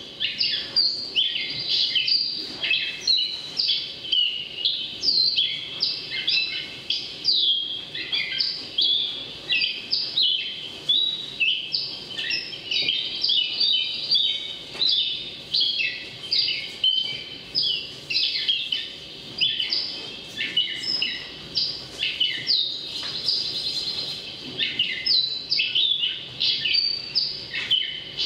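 Many small birds chirping at once, a dense, unbroken chorus of short, quick, overlapping calls.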